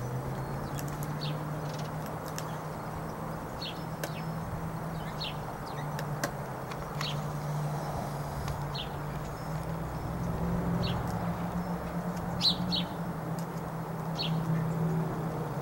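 A small songbird chirping repeatedly, short high chirps about once a second, over a steady low hum, with a few sharp clicks.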